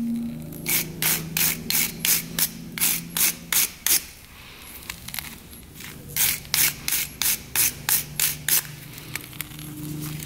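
Fuel petcock being twisted in the gas tank's threaded outlet: rhythmic metal clicking and rubbing, about three strokes a second, with a pause of about two seconds in the middle. The threads are slipping without grabbing, which he takes for stripped or wrong-size threads.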